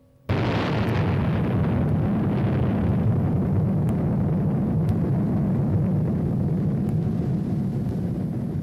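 A sudden blast about a third of a second in, then a steady deep roar that slowly fades: fuel-soaked campfire going up in flames.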